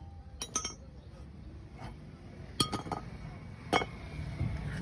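Light metallic clinks and taps, about seven scattered over a few seconds, a few with a short ring, like metal parts or tools being handled.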